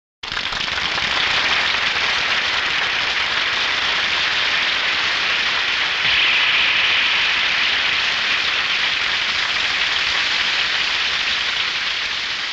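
A steady rushing hiss of noise that starts abruptly, holds level with a slight lift about halfway, and fades out near the end.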